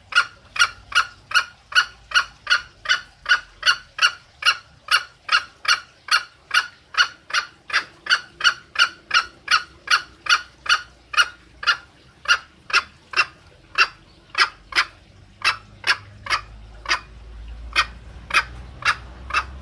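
Junglefowl giving the petrek call: a fast, even run of short clucking notes, about two to three a second, the call used to lure junglefowl. It cuts off suddenly at the end.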